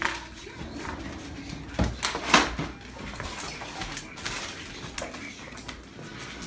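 Dogs play-fighting: scuffling with scattered knocks and thumps, the loudest a couple of thumps about two seconds in.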